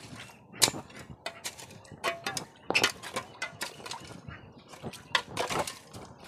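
Hoe blade chopping into and scraping wet, muddy soil in a quick, irregular series of strikes and scrapes.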